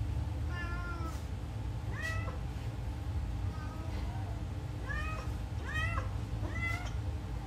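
Newborn kittens mewing repeatedly: short, high-pitched mews about a second apart, each rising in pitch at the start, over a steady low hum.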